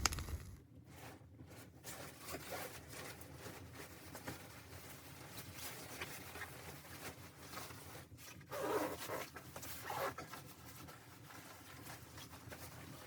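Quiet rustling and handling noises, with two short, louder rustles about eight and a half and ten seconds in.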